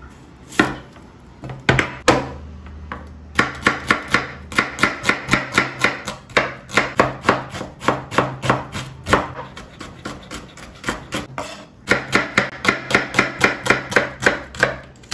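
Chef's knife chopping a red onion finely on a wooden cutting board, the blade knocking the board with each stroke. A few single cuts come first, then rapid chopping at about four to five strokes a second, a pause of about two seconds, and rapid chopping again.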